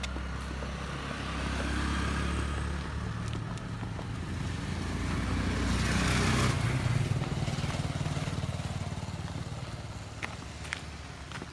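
Motor scooter engine passing on the road, with traffic noise swelling to its loudest about six seconds in and then fading.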